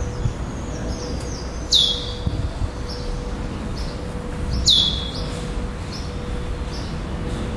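Curió (chestnut-bellied seed finch), a black adult male, singing: a few faint short high notes, then two loud whistled notes about three seconds apart, each dropping sharply in pitch and then held briefly.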